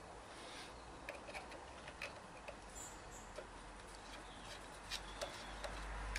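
Faint, scattered small clicks and taps of hand tools on metal, coming irregularly, as the points cam is taken off a BSA Bantam two-stroke engine.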